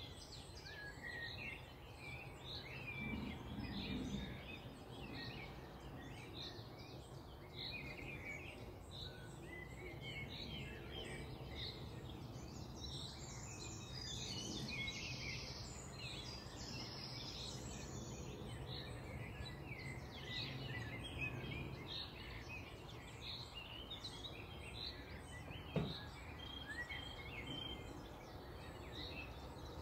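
Dawn chorus of many songbirds chirping and singing over a steady low background rumble, with one sharp click about 26 seconds in.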